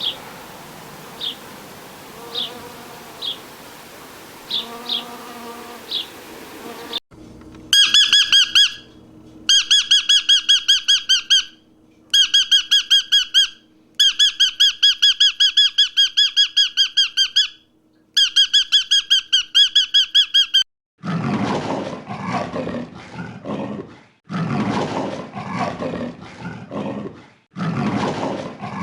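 A run of animal calls. First come short, high chirps. Then a loud, rapidly pulsing high-pitched call repeats in bouts of a few seconds. From about two-thirds of the way in, a big cat gives rough roaring calls in bursts of about three seconds.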